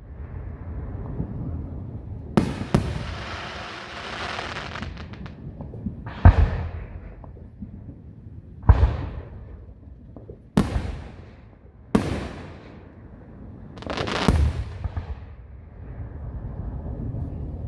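Fireworks bursting overhead: a string of sharp bangs, about seven, spaced a second or two apart, with a long crackling spray after the second bang early on.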